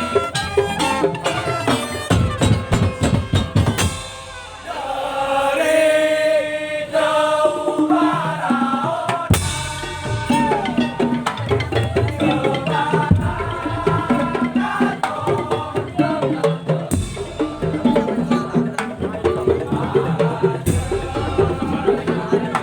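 Madurese tong-tong ensemble playing: drums and wooden slit drums beat a fast, dense rhythm. About four seconds in the beat drops back for a few seconds under a pitched melody, then the full percussion comes back in.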